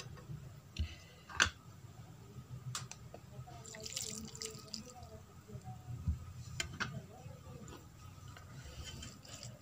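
Dal poured from a stainless steel bowl onto rice on a steel plate, a short splashing pour about four seconds in. Sharp clinks of the steel dishes come before and after it, the loudest about a second and a half in.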